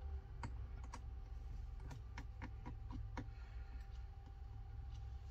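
Small screwdriver clicking and ticking against a battery screw inside an opened Samsung Galaxy Tab S2. The faint, irregular clicks bunch together about two to three seconds in.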